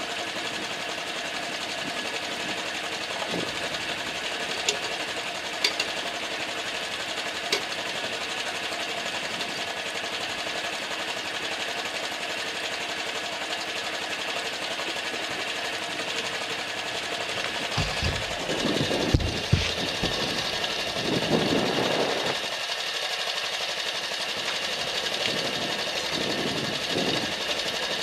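Honda Super Cub's single-cylinder four-stroke engine idling steadily. A few sharp clicks come in the first several seconds, and a burst of knocks and handling noise comes about two-thirds of the way through.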